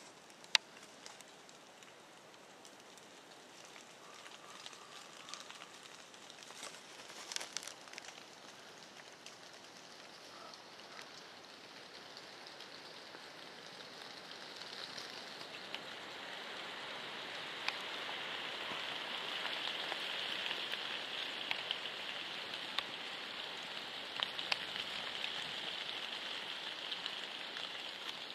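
Steady patter of light rain on fallen leaves and branches, growing louder about halfway through. A sharp tap of the camera being handled comes about half a second in, and scattered ticks and rustles follow later.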